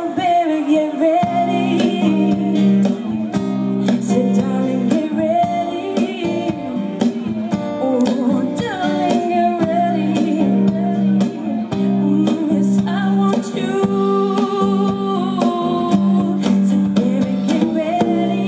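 Woman singing a soul-jazz song live, accompanying herself on acoustic guitar.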